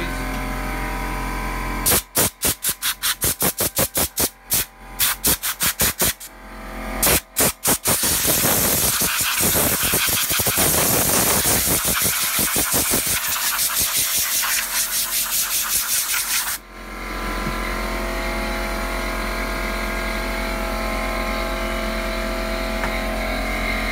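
Compressed air blown over the hash boards to clear dust. First comes a quick run of short, sharp blasts for several seconds. Then a continuous blast of about nine seconds cuts off suddenly. Under it all is a steady machine hum.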